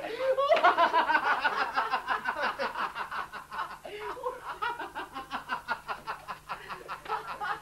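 Three men laughing together in rapid ha-ha bursts, loudest in the first couple of seconds and trailing off toward the end.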